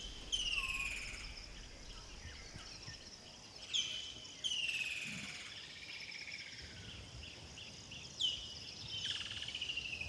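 Bush ambience: a bird calls a sharp note followed by a long falling trill, repeated about every four seconds, over a steady high-pitched insect buzz.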